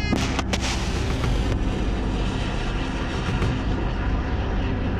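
Missile launching from a Ticonderoga-class cruiser's forward vertical launch cells: two sharp cracks within the first second, then a loud, steady rushing noise from the rocket motor's exhaust.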